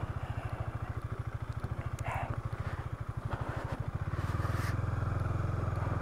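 The single-cylinder engine of a KTM Duke 250 motorcycle runs at low, steady revs, a rapid even putter with no revving, as the bike is eased slowly over black ice.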